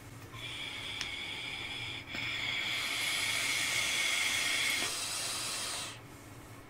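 Electronic cigarettes being drawn on: a steady hiss of the coils firing and air pulled through the atomizers, with a faint high whistle. It grows louder about two seconds in as a second device joins, then stops.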